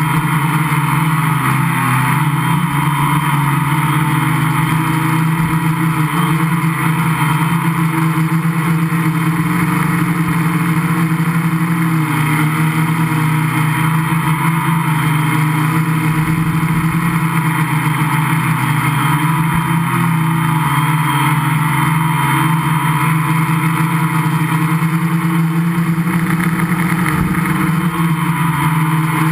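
Gaui 500X quadcopter's electric motors and propellers buzzing steadily up close, the pitch wavering slightly as the quad flies.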